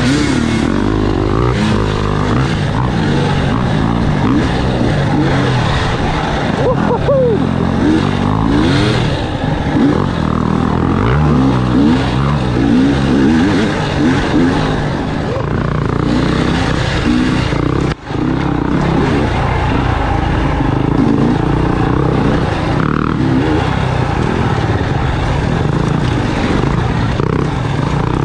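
Enduro dirt bike engine heard from the rider's seat, running continuously with its pitch rising and falling as the throttle opens and closes over the trail. There is one brief drop in the sound about two-thirds through.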